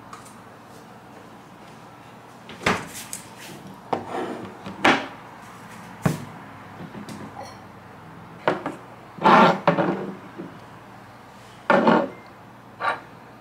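Food containers (a plastic chia seed jar, a yogurt tub, a coconut milk carton and a glass jar) being taken from a refrigerator and set down on a kitchen counter: a string of separate clunks and knocks, with a longer, louder clatter about nine seconds in.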